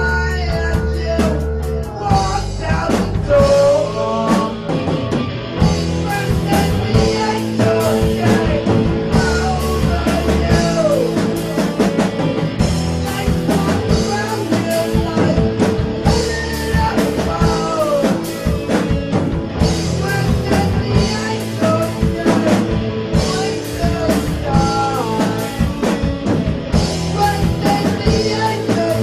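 Rock music: a band with drum kit and guitar plays a steady beat, with a singing voice over it.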